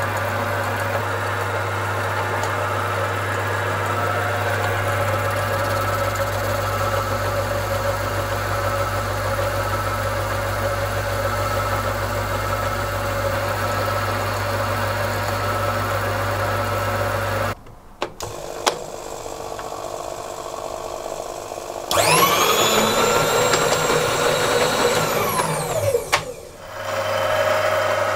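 Halifax 524 metal lathe, a heavier Atlas clone, running steadily while a tool bit takes a facing cut on a metal workpiece. About two-thirds in the running breaks off and a couple of clicks sound. A motor whine then rises, holds for about four seconds and falls away before the steady lathe running comes back.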